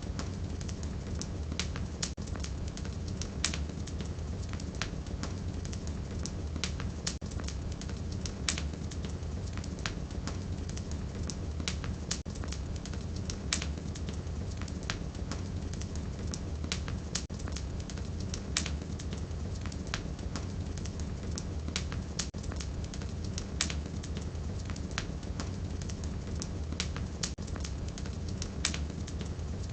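Wood fire burning in a fireplace: a steady low rumble of flames under irregular sharp crackles and pops from the burning firewood, several a second.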